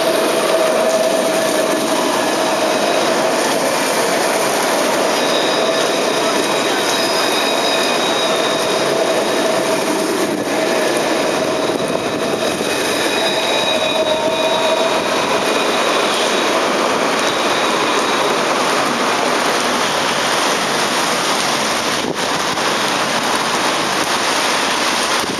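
Alstom Citadis tram rolling past close by and pulling away. Steady high tones ring over its running noise and fade out about halfway through, over a constant hiss of rain on the wet pavement.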